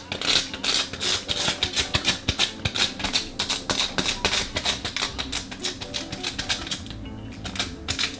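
Rapid, uneven tacky clicking and tapping, several a second with a short pause about seven seconds in, as an adhesive dust-removal sticker is pressed onto an iPhone 7's glass screen and pulled off again and again to lift dust. Background music plays underneath.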